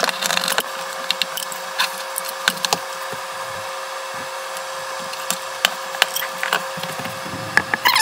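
Scattered knocks, clicks and scrapes of the metal column and motor head of a benchtop milling machine being handled and set down, over a steady background hum.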